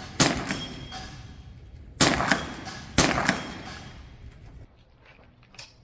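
Three rifle shots, one at the start, one about two seconds in and one a second later, each followed about a quarter second later by a fainter report. Near the end there are only a few small faint ticks.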